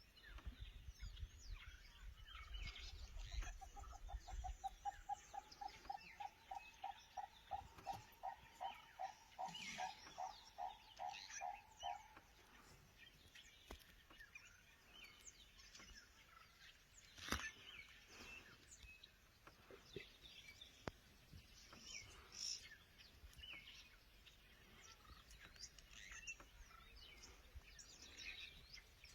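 Faint birdsong: one bird gives a long run of short hooting notes that speed up and rise slightly over about ten seconds, among scattered high chirps of other birds. A low rumble in the first few seconds and a single sharp click about two-thirds through.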